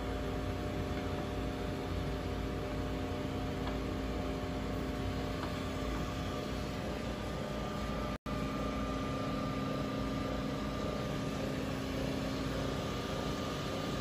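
A cold rolling mill running steadily: its 1 hp electric motor and gearbox turn the rollers of a Durston rolling head, giving an even mechanical hum with several steady tones. The hum cuts out for a split second about eight seconds in, and a higher whine joins it afterwards.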